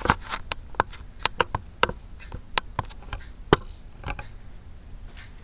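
Irregular light clicks and taps from handling the computer case, about fifteen over a few seconds.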